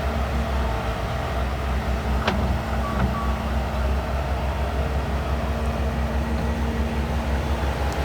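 Skid steer loader engine running steadily at a constant speed, with a couple of sharp clanks a little over two and three seconds in.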